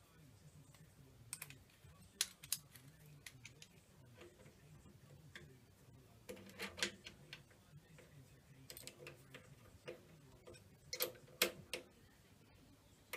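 Faint, scattered clicks and light metal knocks from a metal block being fitted onto a mandrel in a stopped lathe's chuck and a hex key being handled, with a small cluster of knocks about a second and a half before the end.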